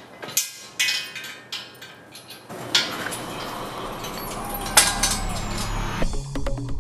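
Scattered clanks and clinks of steel rotisserie parts being handled and fitted together, a caster wheel and square-tube legs knocking against each other and the concrete floor. Music begins near the end.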